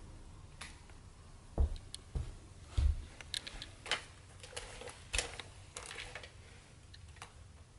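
Plastic toy dinosaur figures being handled: a few dull thumps about one and a half to three seconds in, then a scatter of light plastic clicks and clacks as the figures knock together.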